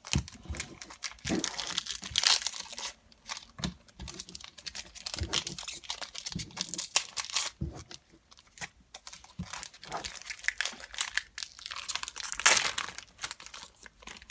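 Foil trading-card pack wrapper being torn open and crinkled in the hands, an irregular crackling and rustling that comes and goes.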